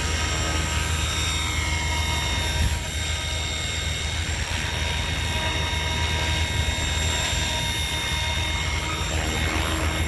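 RC model helicopter flying low, its motor and rotors making a steady high whine over a dense low rotor noise; it sets down near the end.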